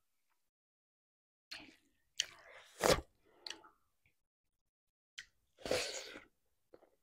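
Close-miked eating sounds: wet chewing and mouth noises of a mouthful of rice and greens eaten by hand, in several short bursts with quiet between.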